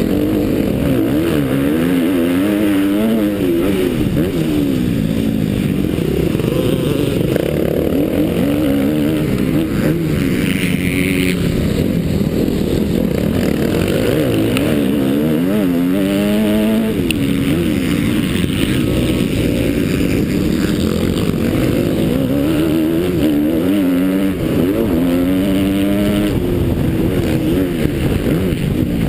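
Motocross bike engine under hard riding, heard up close from the bike itself, its pitch climbing and dropping over and over as the throttle is opened and closed through corners and gear changes.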